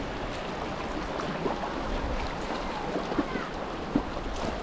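Steady rush of moving creek water around a kayak, with some wind, and a few brief splashes in the second half.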